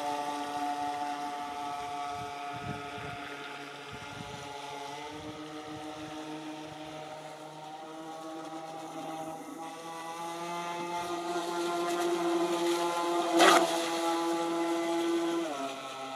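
Motor of a radio-controlled model speedboat running at speed, a steady whine that fades as the boat runs away and grows louder as it comes back. About 13 seconds in there is a brief rushing burst, and near the end the pitch drops suddenly: a strange noise that the driver puts down to the propeller sucking in some air.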